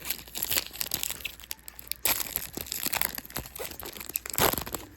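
Foil trading-card booster pack wrappers crinkling and rustling as packs are handled and opened, with irregular sharp crackles and louder bursts about two seconds in and again near the end.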